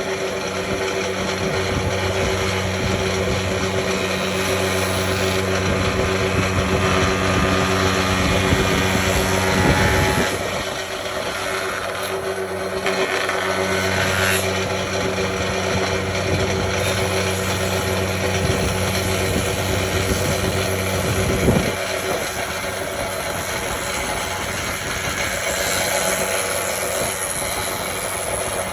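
Electric power tool running with a steady motor hum and a hiss of cutting noise, the hum breaking off briefly about ten seconds in and changing again at about twenty-one seconds.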